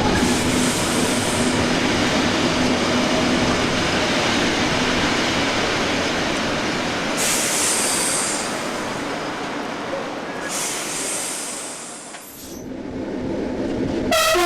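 SNCB AM80 electric multiple unit running on the rails, a dense rumble of motors and wheels with a steady low hum, two brief high hissing squeals partway through, and the noise dropping away about twelve seconds in before building again. A train horn note starts right at the very end.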